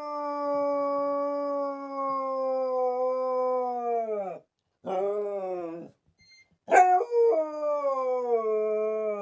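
A dog howling: one long howl that sinks in pitch and breaks off about four seconds in, a short howl about five seconds in, then another long howl from about seven seconds in that slowly slides downward.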